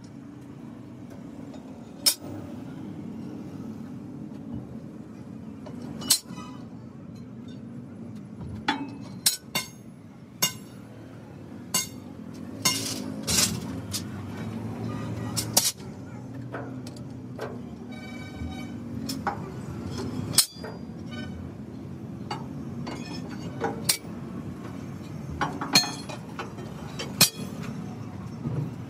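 Steel leaf-spring leaves clinking as they are set one by one onto the centre pin and stacked on each other: a dozen or more sharp metallic clinks at irregular intervals over a steady low hum.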